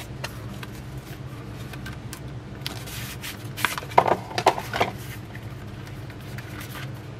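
Paper instruction leaflets rustling and crinkling as they are handled and unfolded, with a louder flurry of crackles about four seconds in, over a steady low hum.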